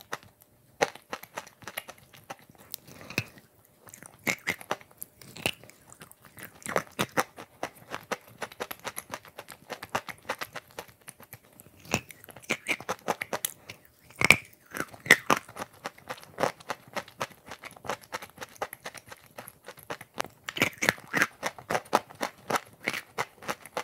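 Close-miked chewing and crunching of chalk lumps coated in wet clay paste: a continuous run of sharp, crackly crunches, with one louder crunch about fourteen seconds in.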